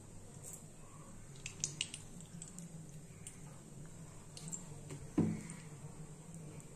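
Vegetable oil being poured into a hot kadai, with scattered small clicks and one sharp knock about five seconds in.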